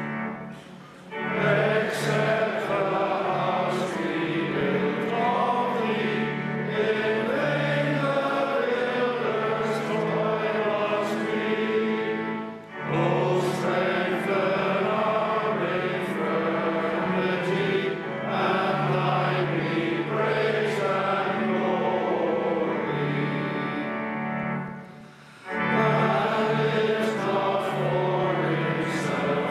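A large group of men singing a hymn together over sustained low accompanying notes, in long phrases broken by short pauses about a second in, about 13 seconds in and near 25 seconds.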